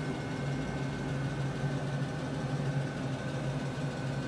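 Steady mechanical hum of a running motor, even and unchanging, with a low hum and a thin higher tone.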